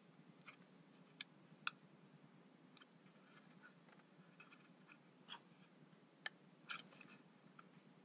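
Faint, scattered small clicks and light taps from hands handling a 2.5-inch Samsung SSD, with a short cluster of clicks near the end.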